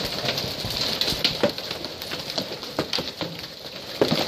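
Large hailstones falling and striking a paved patio and metal-and-glass patio furniture: a steady hiss with many irregular sharp knocks and clicks.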